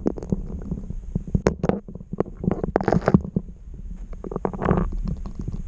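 Muffled, irregular knocks and low rumbling heard underwater through a submerged camera's housing as a pickerel is pulled up through an ice-fishing hole on the line.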